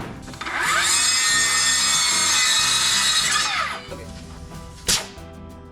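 A handheld power tool's electric motor spinning up, running steadily for about three seconds and winding down, as it works on red oak siding boards. A single sharp knock follows near the end.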